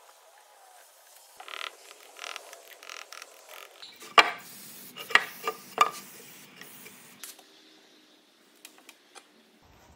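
Wooden workpieces handled on a workbench during a glue-up: a few short hissing bursts, then three sharp knocks of wood set down or bumped against wood about a second apart.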